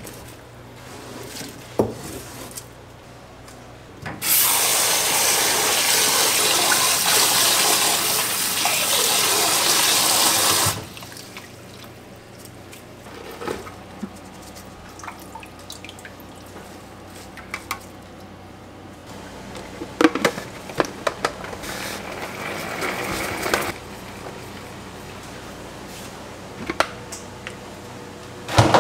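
Kitchen tap running full into a tub of shredded cabbage in a stainless steel sink for about six seconds, turned on and off abruptly. Scattered knocks and clatter of kitchenware around it.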